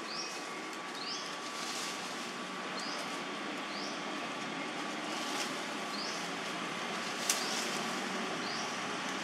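Steady outdoor hiss with a bird repeating a short, high rising chirp about once a second, and a single sharp click about seven seconds in.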